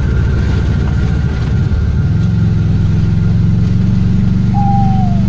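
Suzuki Carry Futura pickup's engine running on the move, heard from inside the cab; its note changes about two seconds in and then holds steady.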